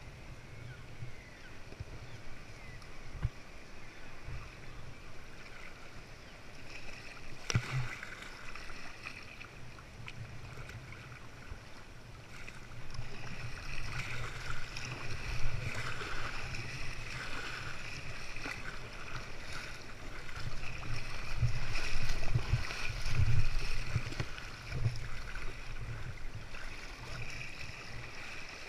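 Sea water splashing and lapping around a kayak as it is paddled, with a low rumble, louder and busier in the second half. A single sharp knock comes about seven seconds in.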